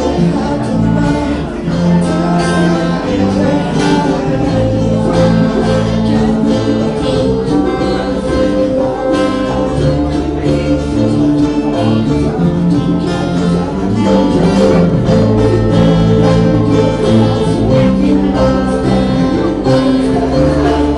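A band's song playing: guitars with a singing voice, continuous and steady.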